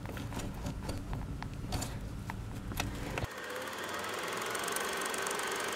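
Scattered metal clicks from a 10 mm wrench being worked on a bolt inside a truck's door pillar, over a low handling hum. About three seconds in, the sound cuts abruptly to a steady, fast-forwarded mechanical buzz with a rapid fine ticking.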